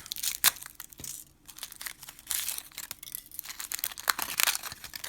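Crinkling and crackling of small packaging being opened by hand to get a key out, with a few sharp clicks.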